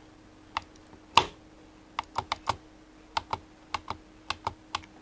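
About a dozen irregular, sharp little clicks and taps of small hard parts being handled at the clutch cable adjuster on the handlebar lever, the loudest a little over a second in.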